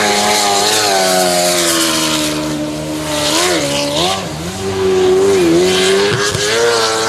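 Jet sprint boat racing at high revs. The engine note sags slowly, then dips and comes back up a few times from about halfway through as the throttle eases through the turns, with a loud rushing hiss of water and spray over it.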